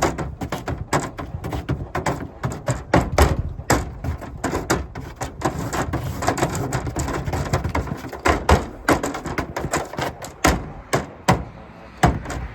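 Gear being unloaded and handled: a fast, irregular run of knocks, taps and clunks over a low rumble.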